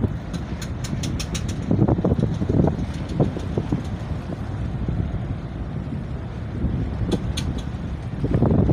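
Steady low rumble of boat and ship engines on open water, with wind buffeting the microphone in gusts. A few sharp clicks come about a second in and again near the end.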